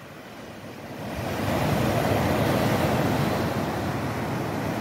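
Ocean surf breaking and washing up a sandy beach, a steady rush that swells about a second in.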